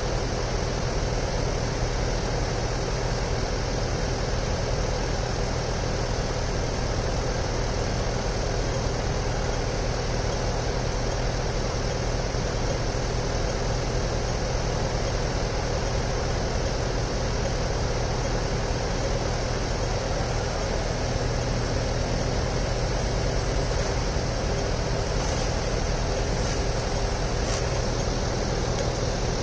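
Steady city street noise of traffic and running engines: an even rush with a low hum underneath and no distinct events.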